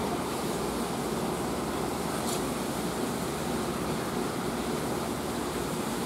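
Aquarium filter and aeration running: a steady rush of water and air noise with a faint low hum. A faint tick about two seconds in.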